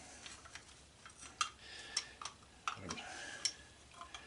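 Scattered light metallic clicks and clinks, a few sharp ones standing out, from small scrap metal parts and hand tools being handled.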